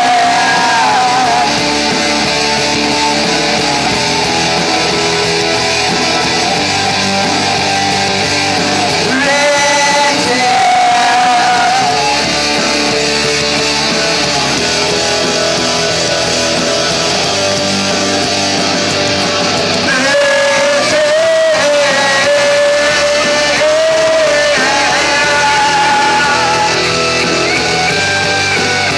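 Live rock band playing an instrumental passage of a song, with guitar.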